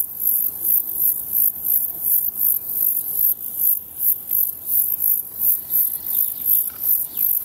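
Insect stridulating: a very high-pitched chirp repeated steadily, about twice a second.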